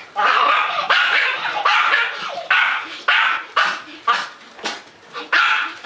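A dog barking over and over, about two loud barks a second, in play with a person leaning in over it.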